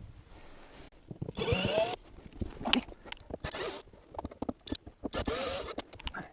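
Fiberglass headliner panel squeaking and scraping against the car's interior trim as it is pried and tugged loose, in several rough bursts with short squeaks, broken by sharp clicks and knocks.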